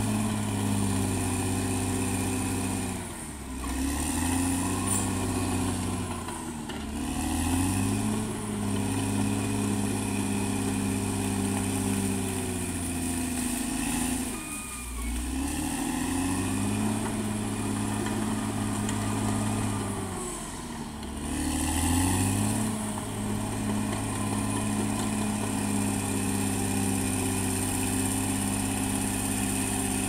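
Caterpillar D6R XL bulldozer's diesel engine working under load, its revs dropping sharply and climbing back about four times as the dozer pushes. A steady high whine rides over the engine and dips along with it.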